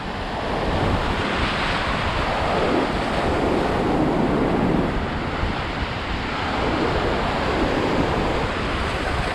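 Ocean surf breaking and washing around a wader, a steady churning wash, with wind buffeting the microphone.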